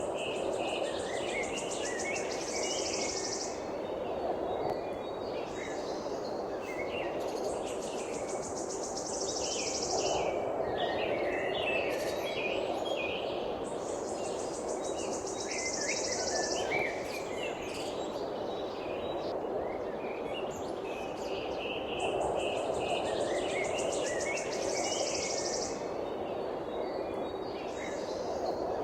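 Birds chirping and twittering, with an insect trilling in high buzzy bursts of two to three seconds that come back every several seconds, over a steady background noise.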